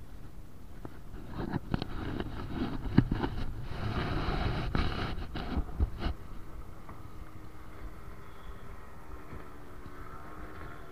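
Wind on the microphone, with a few seconds of louder rustling and clicks around the middle. Later the steady hum of a distant motorboat engine comes in.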